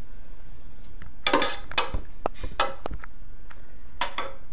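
A handful of irregular clinks and short scrapes of a utensil against a metal pot as roasted bell peppers are served out of it.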